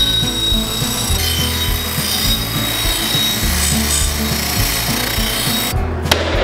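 Bench grinder's wire wheel brushing rust off a steel cleaver blade, a steady scouring hiss that stops near the end. Background music with a low beat plays underneath.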